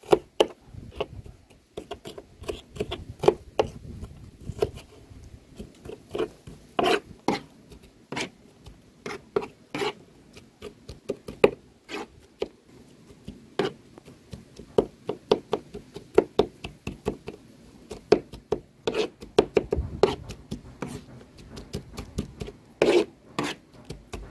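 Knife chopping red onion on a cutting board: irregular, rapid sharp taps of the blade, with some scraping as the chopped pieces are pushed together and scooped up.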